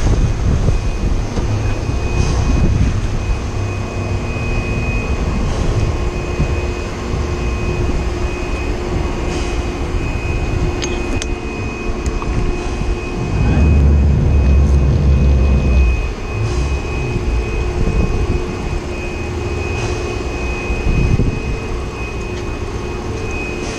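Boat engines running steadily with a constant whine over a low rumble, and wind buffeting the microphone, strongest about fourteen seconds in.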